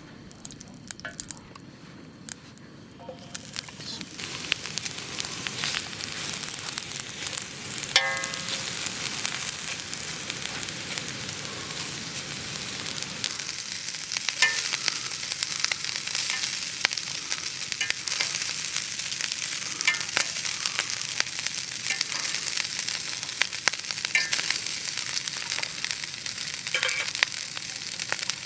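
Oyster mushroom pieces frying in a hot pan: a sizzle that builds up a few seconds in and then holds steady, with the clicks and scrapes of stirring throughout and a few short squeaks.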